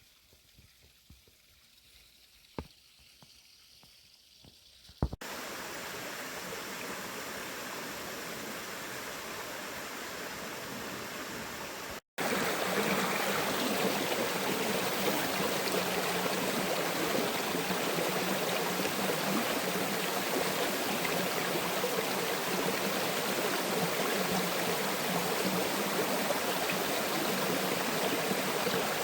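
Waterfall: rushing water making a steady noise. It starts abruptly about five seconds in and is louder after a brief cut about twelve seconds in. Before that it is faint, with a few sharp clicks.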